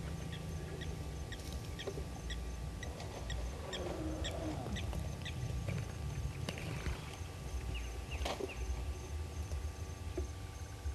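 Waterhole ambience: wild birds calling with many short chirps and a few brief sweeping calls, over a steady low rumble.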